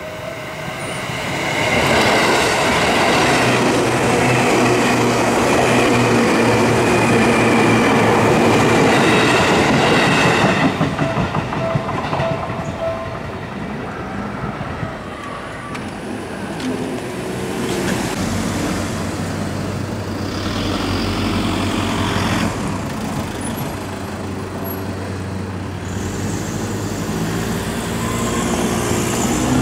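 Seibu Kokubunji Line commuter train passing close by on the tracks at a level crossing. It swells about a second in, runs loud for about nine seconds, then drops away suddenly.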